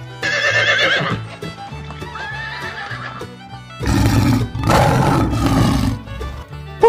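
A horse whinnying: a wavering call about a second long, followed a few seconds later by two loud, rough, breathy blasts. Children's background music with a steady beat plays underneath.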